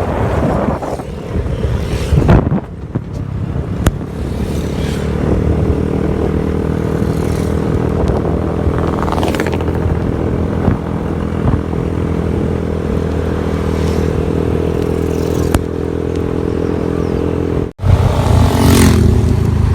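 An engine running at a steady speed, its even hum holding the same pitch throughout, with gusty noise and knocks at the start. It cuts off abruptly near the end, and a louder, lower rumble follows.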